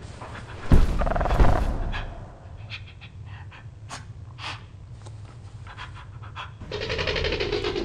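Heavy, rasping breathing sounds with a loud thump about a second in. A run of sharp, irregular clicks and taps follows, and the loud breathing returns near the end.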